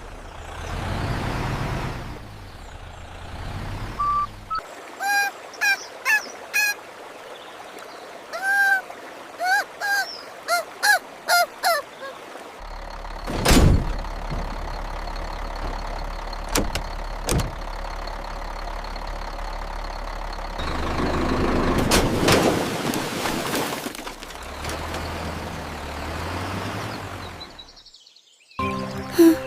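Cartoon duck quacking: about a dozen short quacks in quick runs, between stretches of low rumbling noise. In the later rumble comes one loud sharp thud and, a few seconds after it, two short clicks.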